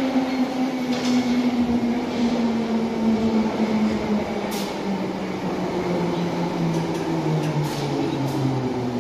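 London Underground tube train pulling into the platform and slowing, its motor whine falling steadily in pitch over the wheel and rail rumble, with a few faint clicks.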